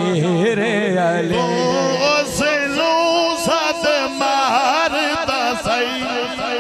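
A male voice singing a drawn-out, wavering devotional refrain in praise of Ali. A steady percussive beat runs underneath from about two seconds in.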